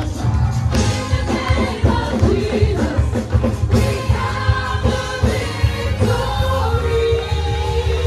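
Live gospel praise music: voices singing over a band with heavy bass and a steady beat.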